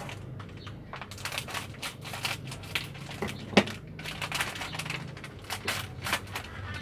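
Plastic snack packet being torn open and crinkled, a run of irregular crackles with one sharper crackle about three and a half seconds in.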